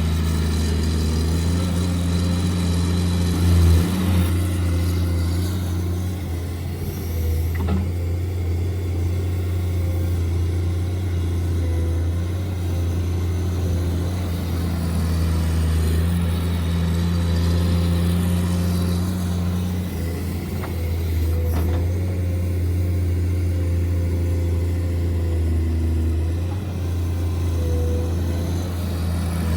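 Radio-controlled model construction vehicle running: a steady, engine-like low hum that shifts slightly in pitch and level as it works, with a short louder knock about four seconds in.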